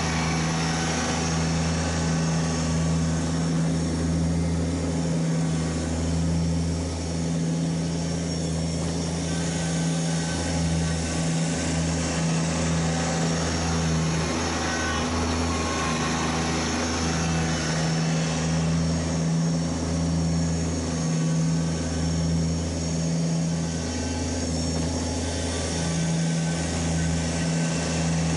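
Kubota BX1870 compact tractor's three-cylinder diesel engine running steadily while plowing snow. Its low hum dips briefly a few times.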